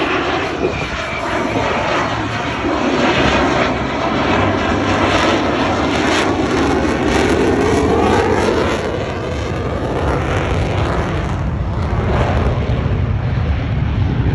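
Military jet aircraft flying low overhead, its engines giving a loud, continuous roar whose tone sweeps up and down as it passes.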